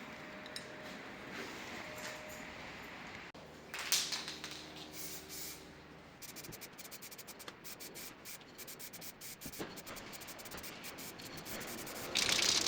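Aerosol can of clear coat being sprayed onto a freshly painted bike fork: a loud hiss about four seconds in and another near the end. Between them comes a long run of fast rattling clicks, as the can is shaken and its mixing ball rattles.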